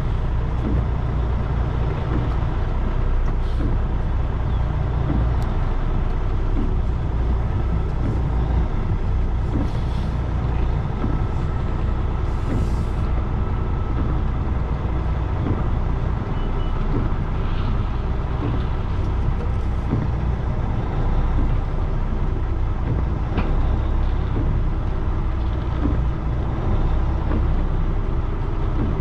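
Semi truck's diesel engine running steadily at low revs during a slow backing manoeuvre, with a brief hiss of air about twelve seconds in.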